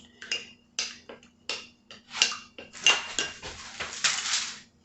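A spoon clinking and scraping against a bowl while stirring melted butter with herbs and spices: a few separate taps, then about two seconds in, faster continuous stirring with a faint metallic ring.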